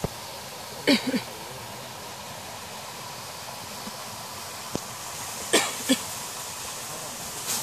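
Monkeys giving short, hoarse, cough-like calls in two quick pairs, about a second in and again past the middle, each call dropping in pitch, over a steady background hiss.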